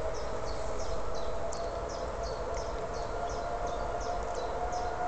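Distant engine's high, steady whine, rising slightly in pitch, from a racing car out on the straight. Short high chirps from a small creature repeat two to three times a second over it.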